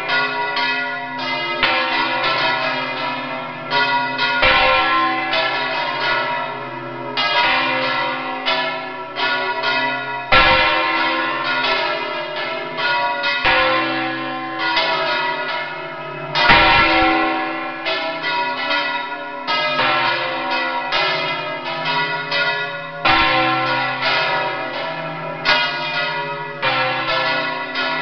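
Four large church bells swung full circle on counterweighted yokes in the Valencian volteig style. Their clappers strike in quick, irregular succession, and the overlapping strokes and ringing blend into one continuous peal, heard close up inside the bell chamber. A deeper, heavier stroke comes about every six seconds.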